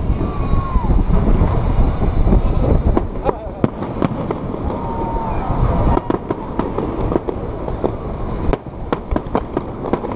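Fireworks going off: a string of sharp pops that come thicker and faster from about three seconds in.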